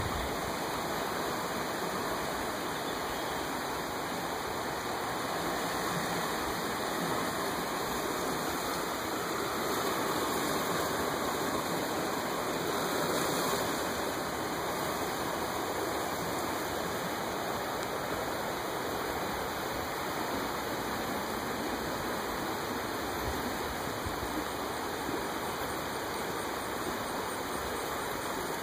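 Floodwater of a swollen river rushing steadily past, swelling a little about halfway through.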